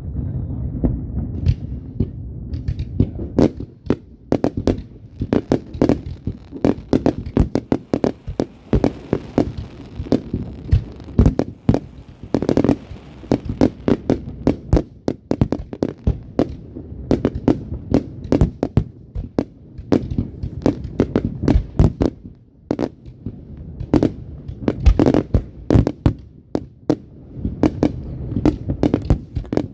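Fireworks going off continuously: many sharp bangs and crackling reports in quick, irregular succession over a low rumble, with a louder cluster of bursts about halfway through.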